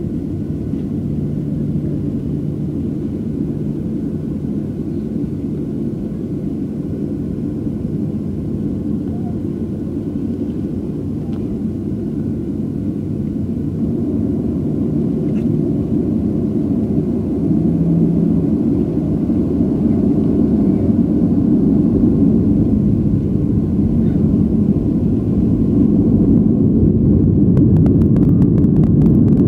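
Boeing 737's jet engines heard inside the passenger cabin as a steady low rumble, growing louder through the second half as power builds for the takeoff roll, with light rattling near the end.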